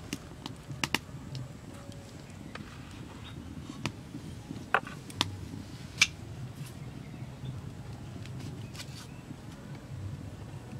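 A few scattered sharp clicks and taps from hands spreading egg filling over rolled dough and folding the dough on a stone counter, over a low steady hum. The loudest click comes about six seconds in.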